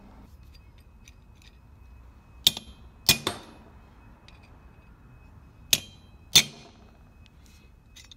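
A hammer striking a punch held on the end of a new stainless steel pin in a window sash pulley resting on an anvil, peening the pin over like a rivet. About five sharp metal blows with a brief ring, in two groups: three a little before the middle and two more later.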